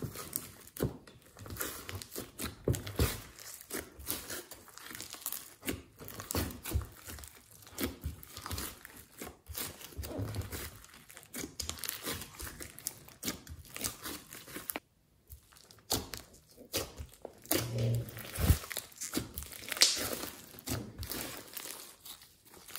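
Hands kneading, folding and stretching glossy slime mixed with clay, glitter and foam beads: sticky squishing with a dense, irregular crackle of clicks and pops, cut by a brief silent gap about two-thirds of the way in.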